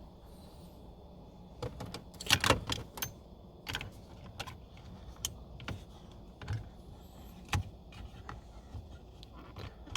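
Keys jangling and clicking in irregular strokes, loudest about two and a half seconds in, over a low steady hum.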